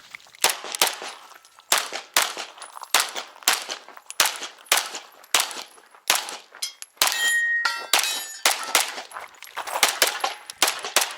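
Canik Rival 9mm pistol firing a string of about twenty shots at a steady pace of roughly two a second, with a metallic ringing after some of them, about seven seconds in.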